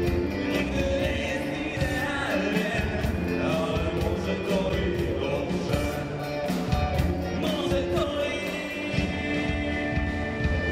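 Rock band playing live: a male singer over electric guitars and drums.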